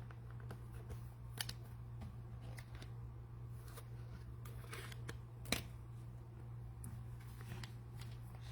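Trading cards and their plastic holders and wrappers being handled on a table: scattered light clicks and rustles, with a sharper click about a second and a half in and another about five and a half seconds in, over a steady low hum.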